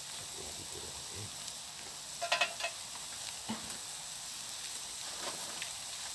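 Mushrooms sizzling steadily as they fry in a pan over a charcoal fire. A short cluster of sharp clicks about two seconds in is the loudest moment, with a few single clicks later.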